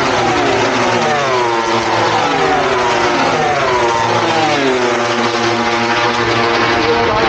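MotoGP racing motorcycles at race speed, the four-cylinder engines of several bikes sounding over one another. Their notes keep sliding down in pitch.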